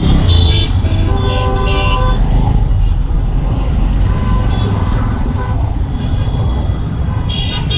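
Busy city road traffic: engines running with a loud low rumble, and vehicle horns honking, one sounding for over a second near the start and more honks a few seconds later.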